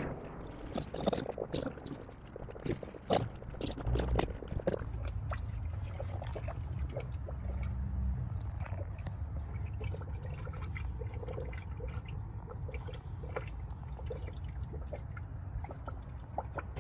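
Engine coolant trickling and dripping as it is poured slowly into a spill-proof funnel to fill the cooling system, with a few clicks and knocks in the first few seconds over a low steady rumble.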